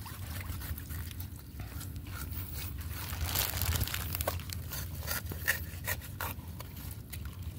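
Scissors cutting open a live sea urchin's shell: irregular small cracks, snips and scrapes of blade on shell and spines, with a longer rasping stretch about three seconds in.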